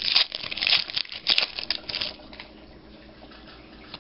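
Foil wrapper of a Panini Elite trading-card pack crinkling and tearing as it is ripped open: a run of sharp crackles for about two seconds, then only faint handling.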